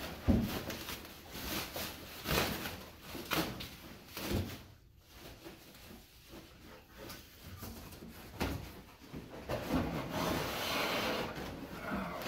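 Bubble wrap and packing material rustling and crinkling as they are pulled out of a shipping box, with scattered knocks and bumps of the box and the part.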